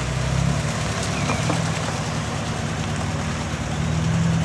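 Older Honda car's engine idling steadily, with a slight rise in level near the end.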